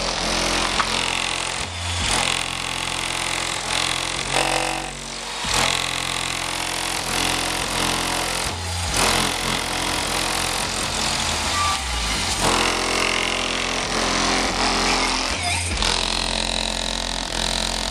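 Bass-heavy music pounding from a trunk-mounted Addictive Audio V.4 12-inch subwoofer in a 2006 Chevy Cobalt, heard from outside the car, the low notes stepping every second or two. The car's body panels and glass buzz and rattle with the bass.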